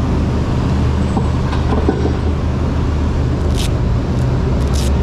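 A large engine running steadily at low speed, a deep even hum. Two short hissing sounds come near the end.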